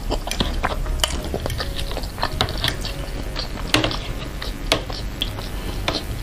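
Close-miked eating sounds: irregular sharp clicks and smacks from chewing meatballs in chili broth, along with a spoon and fork working in the bowl.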